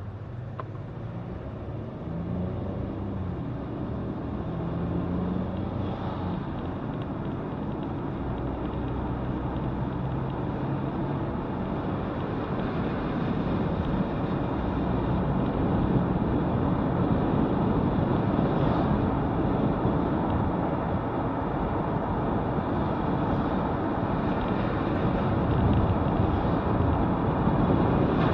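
Car being driven, heard from inside the cabin: engine hum that shifts in pitch in the first few seconds, then steady road and wind noise that grows louder as the car picks up speed.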